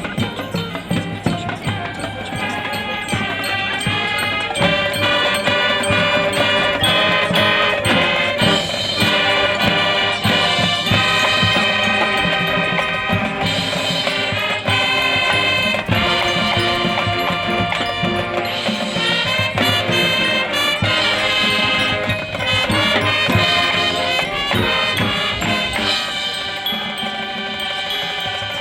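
High school marching band playing a Spanish-themed field show: brass carrying the melody over marching percussion, growing louder over the first few seconds.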